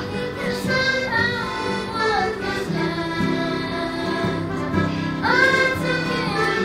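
A boy singing a Newfoundland folk song solo. He is backed by instruments playing held chords that change a few times.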